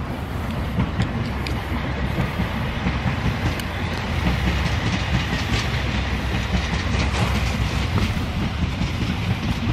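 Passing train: a steady rumble with scattered clicks.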